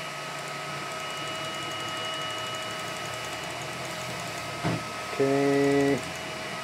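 Background 3D printers running with a steady hum and a faint high whine. About five seconds in, a stepper motor whines at one steady pitch for under a second as a linear-rail printer axis, just greased with DeoxIT L260D lithium grease, jogs a short set distance.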